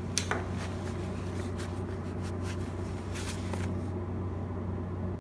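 TIG welding at 150 amps: a steady low hum from the arc and welding machine, with scattered light clicks.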